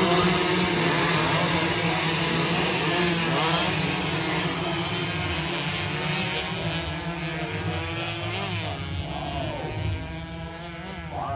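A pack of 116cc racing underbone motorcycles revving hard, several engines rising and falling in pitch through gear changes as they pass and then fade into the distance.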